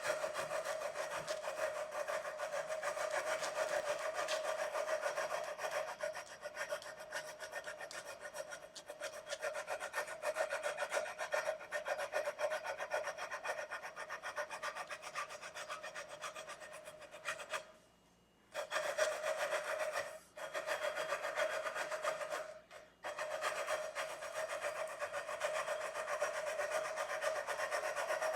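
Sandpaper on a fret-levelling bar rubbed back and forth along the metal frets of an electric guitar neck in quick, steady scratching strokes, pausing briefly three times in the second half. This is the first levelling pass, taking the Sharpie off the high frets to show which are high and which are low.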